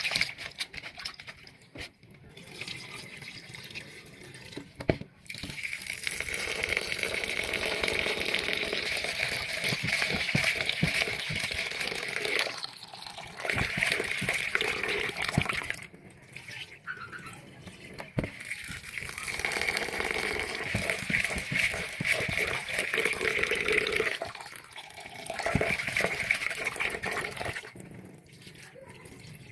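Kitchen tap running into a plastic bowl of brown rice in a stainless steel sink while a hand swishes the grains, rinsing the rice until the water runs clear. The splashing water comes and goes in stretches of a few seconds with short pauses.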